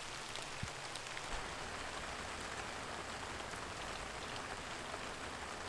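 Steady rain falling, with scattered drops ticking on nearby surfaces.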